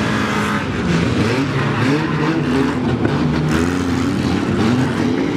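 Several demolition-derby cars' engines revving hard together, their pitch rising and falling as they accelerate and push, with a few knocks of cars colliding.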